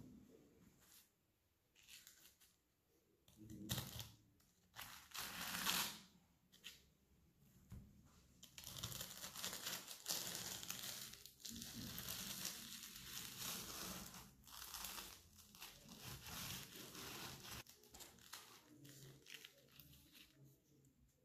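Knife crunching through crisp baked puff pastry: a few short crackling cuts, then several seconds of continuous crackling as the blade draws along the sheet, fading near the end.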